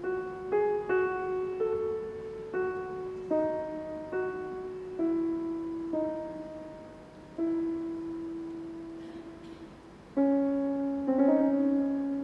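Concert grand piano played slowly and softly, single notes and chords struck one after another and left to ring and fade. Fuller chords come near the end.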